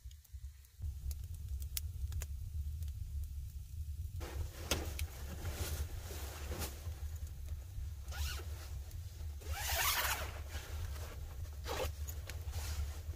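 A zipper pulled in several short rasping strokes, the longest about ten seconds in, amid fabric rustling, over a steady low rumble that starts about a second in.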